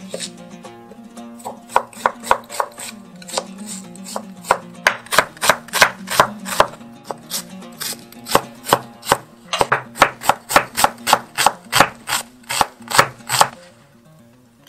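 Chinese cleaver chopping onion on a wooden cutting board: a run of sharp knocks, sparse at first, then fast and steady at about three strikes a second, stopping shortly before the end.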